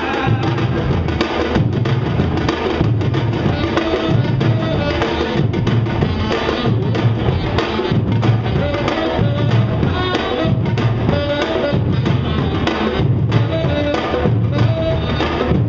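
Samba-reggae drum ensemble playing live: surdo bass drums beat a steady repeating pattern about once a second, with repenique and other stick-struck drums playing faster strokes over it.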